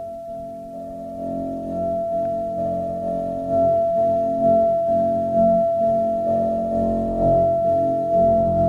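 Eurorack modular synthesizer playing a dark, filtered Karplus-Strong plucked-string patch. Tones are plucked about once a second and each decays, over a steady held tone, and the sound grows louder.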